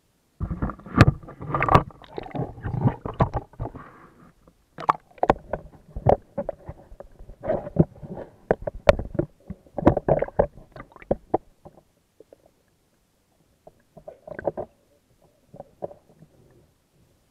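Bathwater sloshing and splashing in a filled tub as a person in a waterlogged fake-fur coat moves about, in irregular bursts with sharp splashes. The splashing is busy for about the first eleven seconds, then only a few scattered splashes follow.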